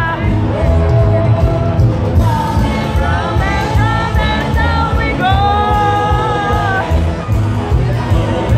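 Live band playing a 1950s rock-and-roll medley: a voice singing over electric bass and drums with a steady beat, holding one long note about halfway through.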